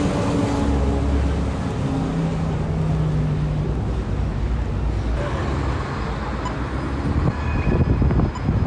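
City traffic: vehicle engines running with steady road noise. Wind buffets the microphone near the end.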